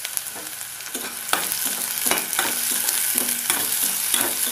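Chopped onions sizzling in hot oil in a metal kadai. From about a second in, a slotted metal spoon scrapes and knocks against the pan, roughly two strokes a second, as the onions are stirred.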